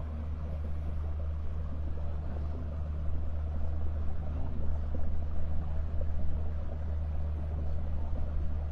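A small cruise boat's engine running steadily under way, a low even drone with a rushing wash of water and wind over it.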